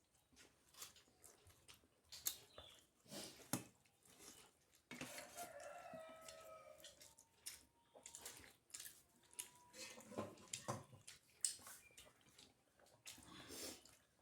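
Soft chewing and mouth clicks from someone eating, with a rooster crowing once in the background about five seconds in.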